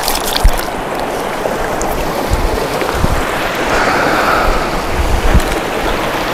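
Rushing stream water, a steady loud rush, with a few low thumps.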